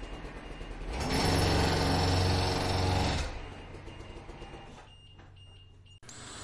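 Construction-site heavy machinery: an engine grows loud about a second in, runs for about two seconds, then dies down while a faint high beeping repeats. A different machine sound starts abruptly near the end.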